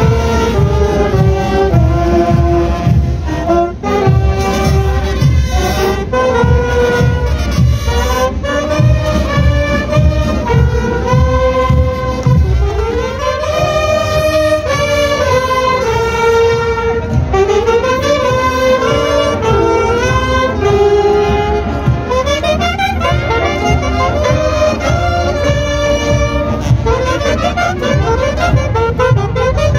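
School marching band playing on the march: saxophones and brass carry a melody over a steady drum beat, the saxophones closest and loudest.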